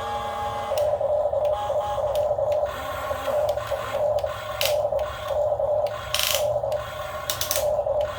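Small electric motors and gearboxes of a radio-controlled model excavator whirring in short stop-start bursts, with a buzzing whine cutting in and out about every half second.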